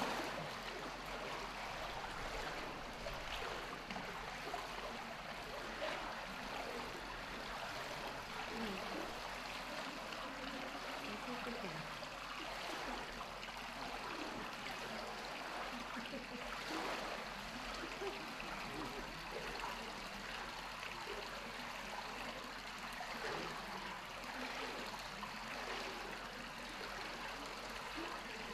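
Steady running water trickling and splashing into a zoo pool from an inlet pipe.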